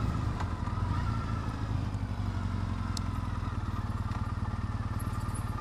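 Triumph Bonneville T100's parallel-twin engine running steadily under the rider, a low even rumble.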